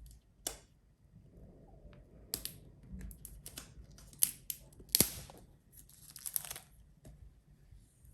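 Hands unboxing an Oculus Quest 2 headset: cardboard and plastic packaging being opened, with a run of sharp clicks, short tearing and crinkling sounds, the loudest snap about five seconds in.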